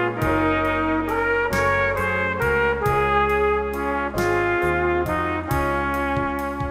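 Instrumental hymn music with a trumpet carrying the melody over sustained chords and a bass line. The notes move on a steady pulse of a little over two per second.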